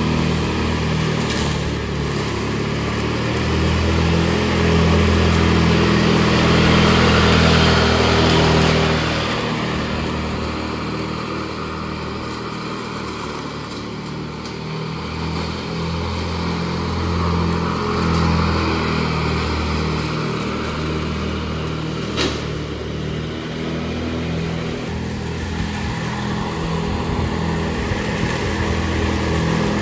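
Riding lawn mower engine running steadily, getting louder and quieter by turns, with one sharp click about two-thirds of the way through.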